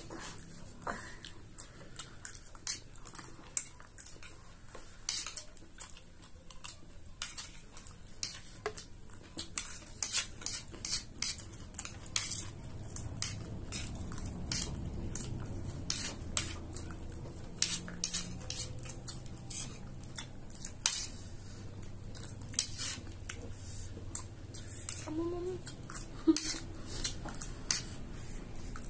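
Small metal spoons clinking and scraping against ceramic plates, many sharp irregular clicks as two people scoop a dry, loose snack mix.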